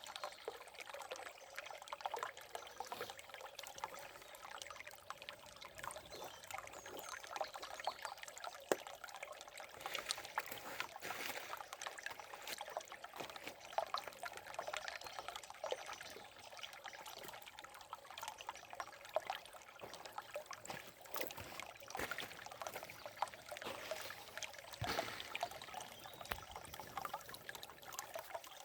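Forest river water running and trickling steadily, with many small splashes.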